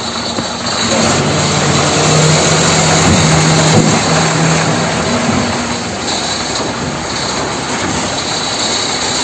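A heavy vehicle engine running steadily, with a low hum that is strongest in the first half and then eases off.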